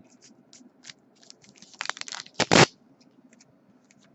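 Bowman Chrome football cards being handled and slid against one another: small scattered clicks, with a louder scraping rustle about two and a half seconds in.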